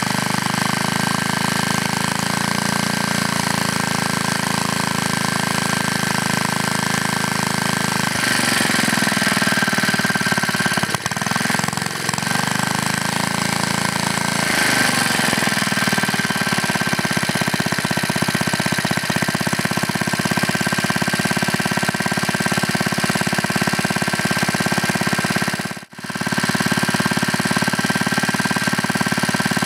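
Briggs & Stratton Model 6S single-cylinder flathead engine running steadily. Its speed shifts up and down for several seconds about a third of the way in, as the throttle linkage is worked by hand, then it settles back into an even run. There is a brief dropout near the end.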